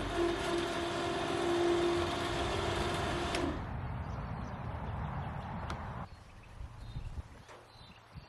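A machine running with a steady hum that stops sharply about three and a half seconds in. A quieter mechanical noise follows and dies away about six seconds in, leaving a few faint clicks.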